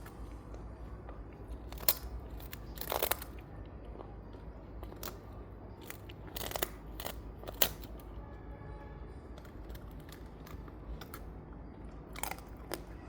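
Shiba Inu gnawing a bone: irregular sharp crunches and cracks as its teeth bite down, a few louder ones among many faint ones.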